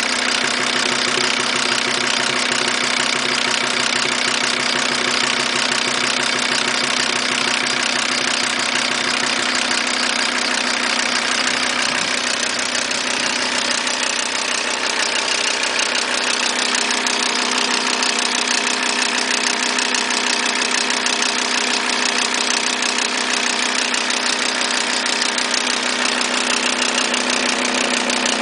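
Audi A6 2.5 TDI five-cylinder diesel engine running with a steady, fast ticking knock from the valve train. The cause is the inlet valves touching the pistons: the key on the crankshaft timing-belt sprocket had sheared, leaving the cam timing 6–8 degrees advanced.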